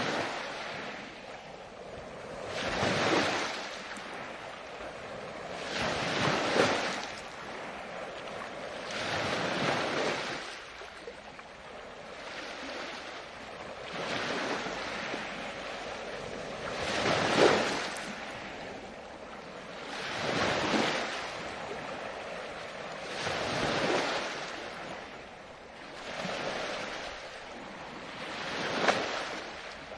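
Ocean surf: waves breaking and washing in, swelling and fading about every three seconds.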